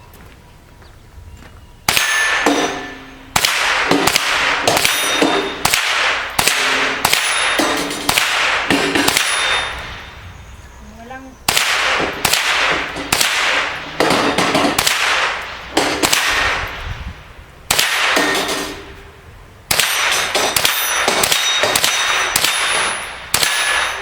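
A .22 rifle fired many times in quick strings with short pauses, each shot followed by a metallic clang and ring from steel plate targets being hit.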